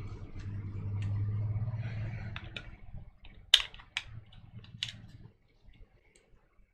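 Small gun parts of a Glock 23 pistol being handled during reassembly: five or six sharp clicks, the loudest about three and a half seconds in. A low hum runs under the first two seconds or so.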